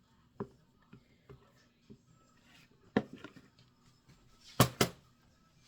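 Scattered sharp knocks and taps of a spatula against a plastic container while soap is scraped out. There is a loud knock about three seconds in and two louder ones in quick succession near the end.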